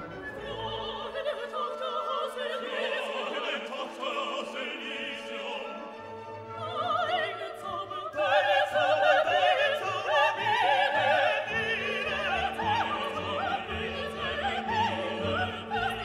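Background music: an operatic classical piece with orchestra, its melody wavering with heavy vibrato and growing louder about halfway through.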